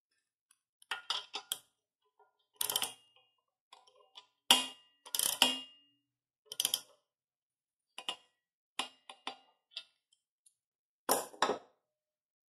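Ratchet wrench and socket tightening lug nuts on an alloy wheel: a dozen or so irregular sharp metallic clicks and clinks, some ringing briefly, the loudest about halfway through.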